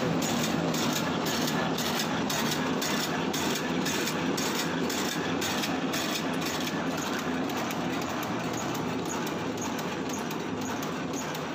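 Homemade meatball-forming machine running empty: its electric motor and chain-driven sliding cutter blades make a steady mechanical clatter with an even ticking rhythm. With no dough in the hopper it runs rather noisily.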